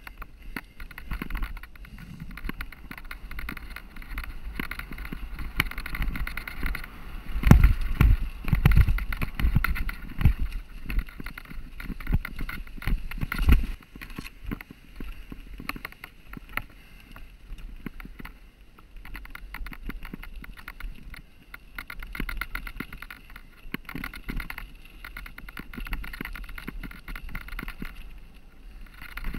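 Mountain bike ridden fast over rough dirt and stone singletrack: tyres rolling over the trail with constant clattering and rattling from the bike. The heaviest jolts and thumps come about 7 to 10 seconds in and again near 14 seconds.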